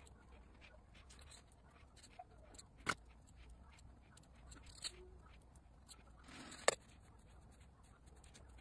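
Small rhinestones and plastic bead pots being handled: a few sparse, sharp clicks and taps, about three, five and nearly seven seconds in, the last one the loudest and preceded by a brief rustle, over a faint steady hum.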